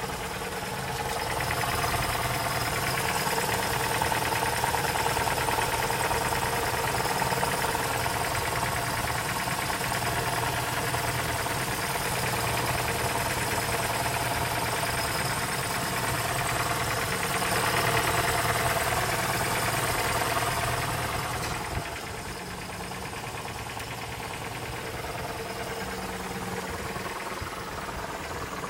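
Car engine idling with a strong knocking rattle from the manual gearbox, a noise that disappears when the clutch pedal is pressed, which the owner suspects is a worn input shaft bearing. The rattle runs steadily, then drops off sharply about three quarters of the way through, leaving a quieter idle.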